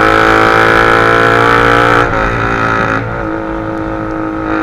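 Suzuki GSX-R150's single-cylinder engine through a Racefit slashcut aftermarket exhaust, running at steady revs on the road, very loud. About two seconds in the note wavers and dips, then holds steady again, a little quieter.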